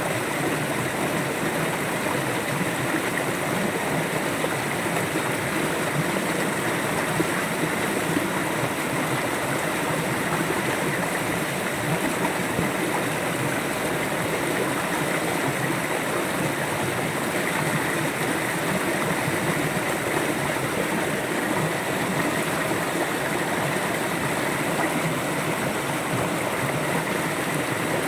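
River water flowing steadily, a continuous even rush with no changes.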